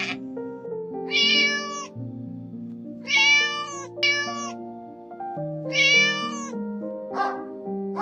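Kitten meowing four times in short, high calls over steady background music. A single short dog bark comes near the end.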